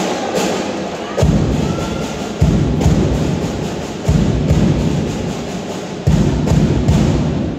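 A heavy drumbeat: deep thumps arriving in groups, with new groups starting sharply about a second in, then again at two and a half, four, six and seven seconds, and fast regular ticks running over them.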